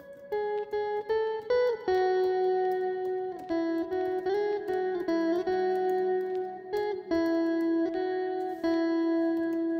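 Background music: a slow guitar melody of single plucked, sustained notes, some sliding into the next.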